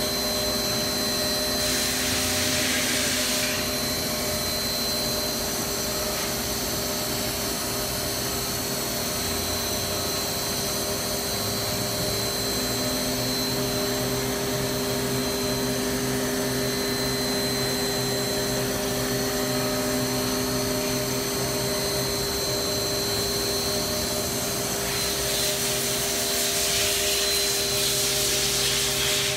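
A 2006 Milltronics RH-20 CNC vertical machining center running a program: a steady machine hum with a constant high whine, and two spells of louder hiss, about two seconds in and again near the end.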